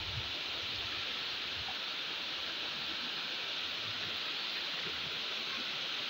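Steady rushing of fast-flowing river water running over a shallow paved channel, an even hiss without breaks.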